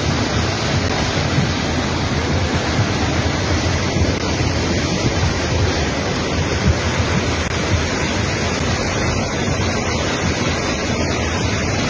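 Floodwater rushing down a street as a fast, churning torrent: a loud, steady rush of water.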